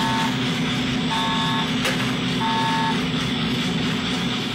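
Drum coffee roaster running mid-roast, its drum and fan making a steady drone. Three short electronic beeps sound over it, about a second and a quarter apart, and there is a single sharp click just under two seconds in.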